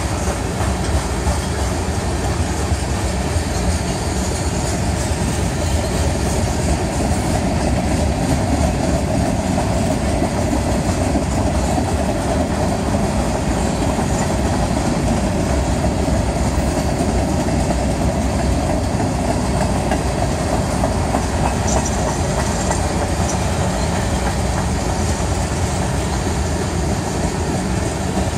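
Freight train's tank cars and boxcars rolling past, a steady, unbroken noise of steel wheels on the rails.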